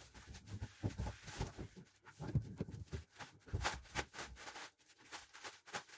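Irregular handling noises while unboxing a 3D printer: low thumps, knocks and clicks with short rustles of packaging, coming in uneven clusters.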